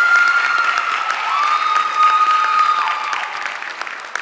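Audience clapping, with two long, high-pitched shouts held over it, the second starting about a second and a half in. The clapping thins out toward the end.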